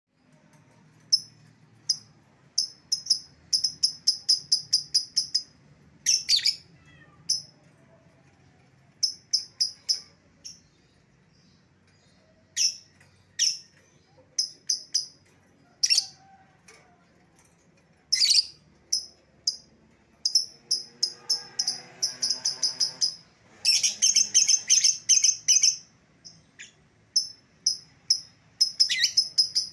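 Lovebird calling in sharp, high chirps that come in quick runs of several a second, broken by short pauses. This is the long chattering 'ngekek' call, used as a lure sound to call an escaped lovebird back.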